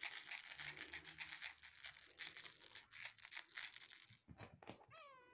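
Fast, scratchy rustling and scraping for about four seconds, then a short kitten mew falling in pitch near the end.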